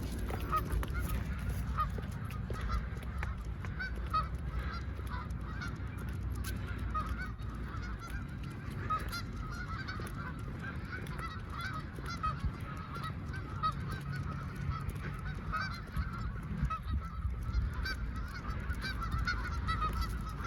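A flock of geese honking, with many short calls overlapping without a break.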